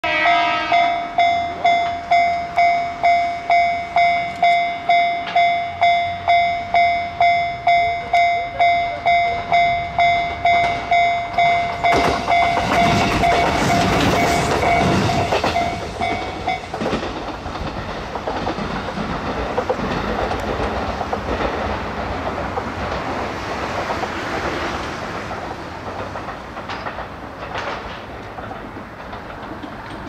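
Level crossing warning bell ringing about twice a second as a JR Kyushu KiHa 200 series diesel railcar approaches. The railcar passes close with a loud rush of engine and wheel noise, the bell stops about 16 seconds in, and the diesel fades as the railcar pulls away.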